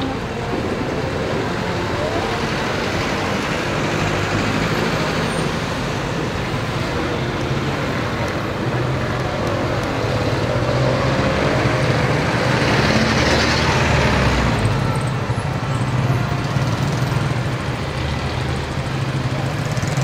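Street traffic of motorcycle tricycles, jeepneys and cars: a steady drone of engines running close by, swelling louder for a couple of seconds about two-thirds of the way through.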